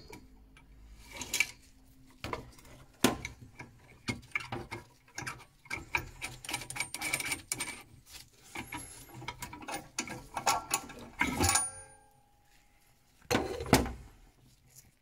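Light metallic clicks, knocks and scrapes of a spanner and hand working at a boiler gas valve's fittings while the valve is undone and lifted out. A sharper knock with a short ring comes about eleven seconds in, and a louder burst of handling noise follows near the end.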